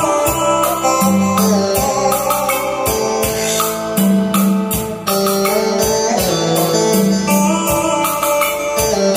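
Music with a steady beat played through a 3-way speaker set (30 cm woofer, 12 cm midrange and horn tweeter) wired straight to the amplifier with no crossover in the line: the before-crossover half of the comparison.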